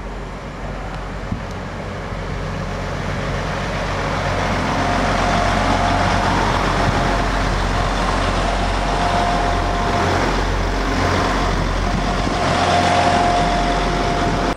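Class 175 diesel multiple unit passing close by: engine drone and wheels on the rails, growing louder as it draws alongside about four seconds in, with a steady whine that comes and goes.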